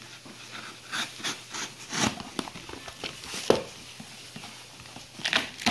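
Knife slitting packing tape on a cardboard box and the flaps being pulled open: scattered scrapes, rips and rustles, with a knock about three and a half seconds in.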